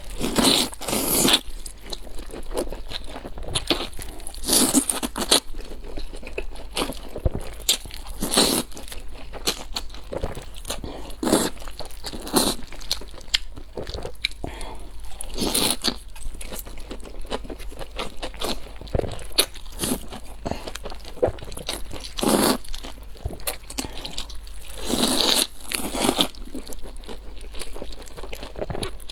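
Close-miked eating sounds: repeated crunchy bites and chewing of fried food, in irregular crackly strokes with louder bites every few seconds.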